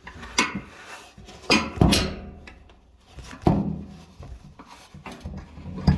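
A hand tool knocking and scraping against the dryer's metal parts while prying at the belt: several sharp knocks, the loudest about two seconds in, with rubbing between them.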